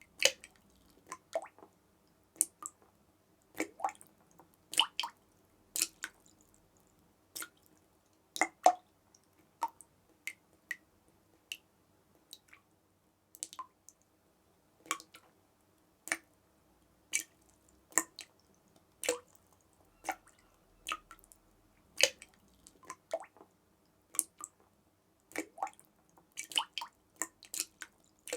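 Water drops falling one at a time, each a sharp plink. They come at an irregular pace, roughly one a second, sometimes two in quick succession, with near silence between.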